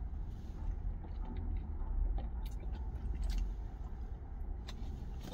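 A man drinking from a small paper carton tipped up to his mouth: soft gulping and swallowing with a few faint clicks, over a steady low rumble.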